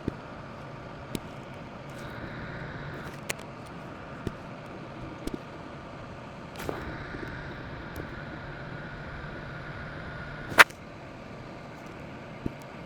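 A few small clicks and taps from handling hard objects, with one louder sharp click about ten and a half seconds in, over a steady faint hiss.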